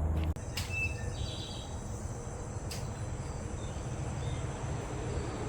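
Outdoor ambience of insects trilling steadily at a high pitch over a low rumbling noise, with a short bird chirp about a second in and two sharp clicks.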